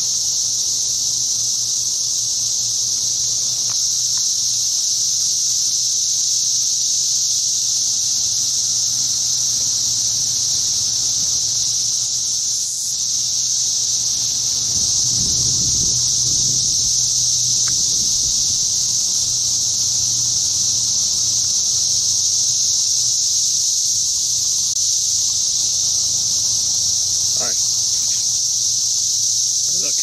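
Dense chorus of Brood X periodical cicadas: a loud, steady, high-pitched drone that never breaks.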